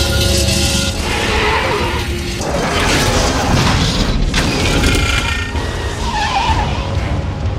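Film action sound mix: a tractor-trailer and a pickup truck driving hard side by side, with metal grinding and crunching as the semi rams into the pickup's side, under a music score.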